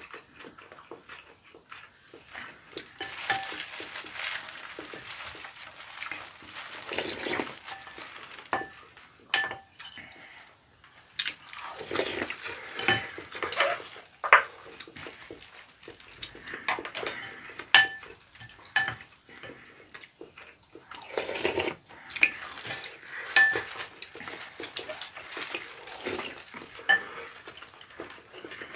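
Mealtime sounds at the table: chopsticks clicking and clinking against glass and ceramic bowls and plates, some clinks ringing briefly, every second or two. Chewing and soft handling noises fill the gaps between them.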